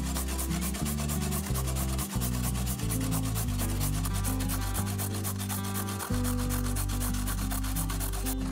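A carrot being grated by hand on a stainless steel box grater: quick, even scraping strokes of the carrot against the metal teeth, over background music.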